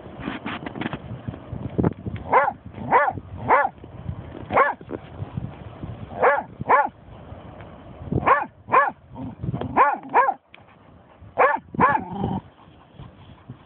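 German shorthaired pointer barking: about a dozen short, sharp barks in quick pairs and triplets with pauses between.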